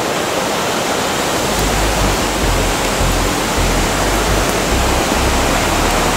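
Steady rush of a mountain creek and waterfall. From about a second and a half in, low uneven rumbling is added to it.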